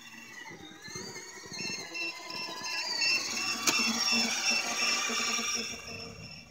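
Electric whine of an RC toy snowmobile's brushed drill motor and speed controller as it drives over snow. The pitch rises and falls with the throttle, and the whine gets louder in the middle as the sled comes close. A single sharp click comes about halfway through.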